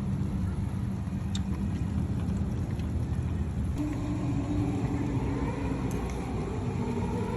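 An engine running steadily, with a rising whine from about four seconds in as it picks up speed.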